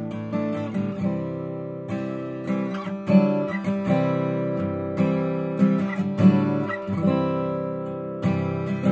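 Bourgeois OMS 12-fret acoustic guitar, Adirondack spruce top with Madagascar rosewood back and sides, being played: chords struck and picked every second or so and left to ring.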